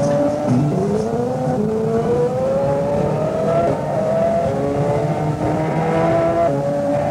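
Car engine running hard and accelerating, its pitch climbing steadily, then dropping back and climbing again several times over.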